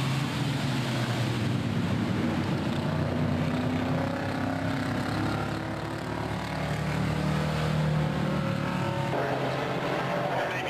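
Vintage racing car engines running hard as cars pass one after another through a corner, the engine pitch gliding up as they accelerate. The sound changes abruptly about nine seconds in.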